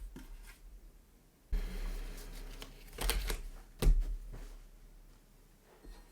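Handling noises on a desk: rustling with a low bump about one and a half seconds in, then a few sharp knocks, the loudest about four seconds in, as items are put down and moved.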